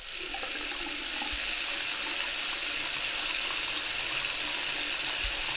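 Water tap running into a sink, a steady even rush of water.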